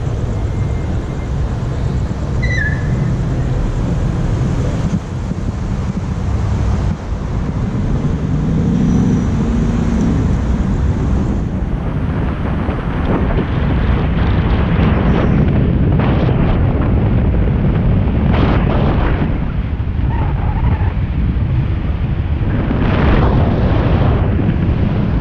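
Car driving, heard through a camera mounted outside on its roof: a steady low rumble of wind on the microphone and road noise. Several louder surges of wind come in the second half as the car picks up speed.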